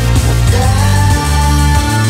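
Loud music with a deep bass line that steps between notes; a higher note slides up about half a second in and then holds.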